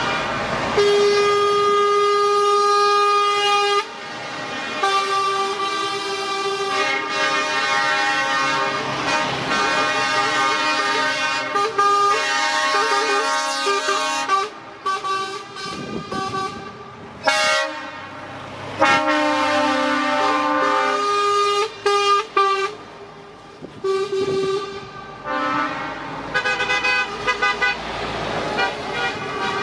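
Truck air horns blowing as a convoy of semi-trucks passes, several pitches at once: long held blasts for about the first fourteen seconds, then a run of short toots.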